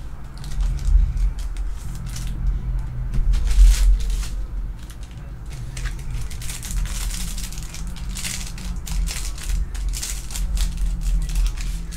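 Foil booster pack wrapper of Pokémon TCG Celebrations cards crinkling in irregular crackles as it is handled and opened, the packs stiff and hard to open, over a steady low hum.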